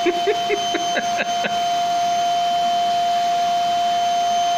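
Household electric vacuum cleaner running steadily after being switched on, its motor giving a loud, even high whine over a rushing hiss.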